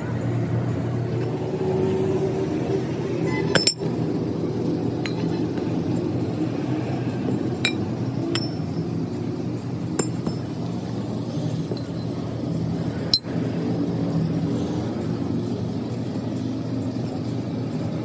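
A steady mechanical hum, with about five sharp metallic clinks spread through it, the loudest about three and a half seconds in and another about thirteen seconds in.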